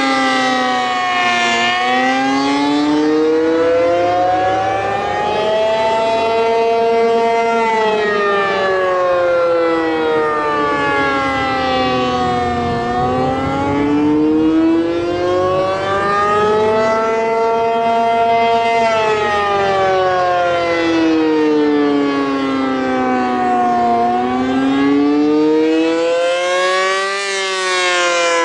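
Non-reverse-wired ACA P-50 outdoor warning siren sounding the Attack signal, a loud wail that rises for about five seconds and falls for about five, over and over. The recordist calls the siren 'a bit sick' but says it still performs strongly.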